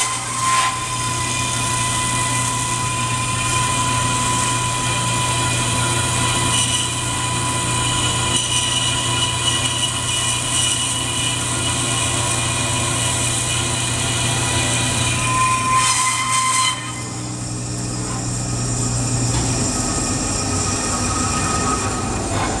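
DoAll vertical bandsaw cutting through a thick aluminium plate, a steady running hum with a high whine from the blade in the cut. The cutting sound stops abruptly about 17 seconds in as the blade comes through, leaving the saw running on more quietly.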